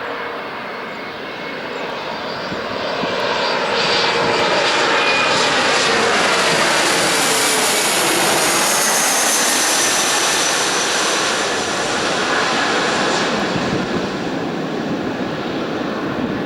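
Canadair CRJ-900ER regional jet passing low overhead on landing approach, its twin rear-mounted turbofans swelling to a loud rushing peak a few seconds in. Whining tones glide down in pitch as it goes by, and the noise then eases off.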